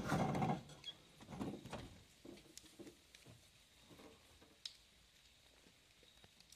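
An old pickup truck's engine noise stops about half a second in. Faint rustling and scattered soft clicks and knocks follow, from papers and keys being handled inside the cab.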